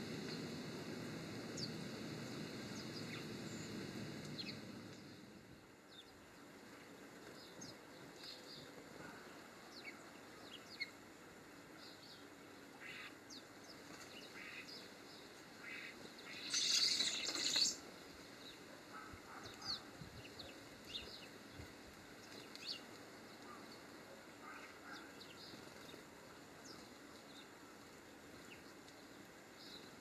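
Small garden birds giving short, high chirps and calls scattered throughout, over a low background rumble that fades out about five seconds in. Past the middle comes one loud rushing burst lasting about a second.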